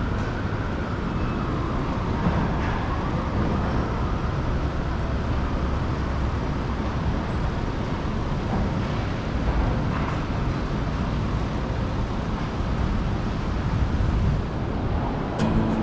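City street traffic: a steady rumble of passing cars and other vehicles.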